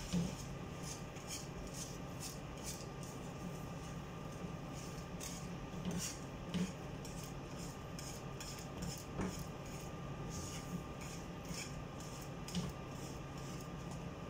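Wire whisk scraping and clinking against a metal pan, stirring a thick browned-flour asida mixture as hot water is worked in a little at a time, with a few louder knocks against the pan. A steady low hum runs underneath.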